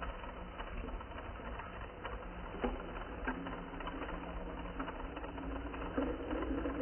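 Small Lego electric motor running steadily through its plastic gear train, a low whir with light clicking of the gears, as it spins a large toothed sprocket in water to stir a whirlpool.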